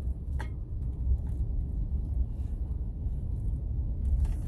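Steady low rumble of a car's engine and tyres, heard from inside the cabin while driving slowly, with a faint click about half a second in.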